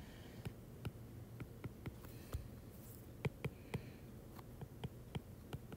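Faint, irregular clicks of a stylus tip tapping and touching down on a tablet's glass screen while words are handwritten, a few taps a second.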